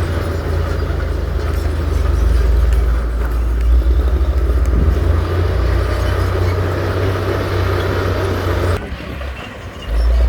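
Heavy diesel engine of earthmoving machinery running steadily with a deep, even drone. About nine seconds in the sound drops away abruptly, then comes back loud about a second later.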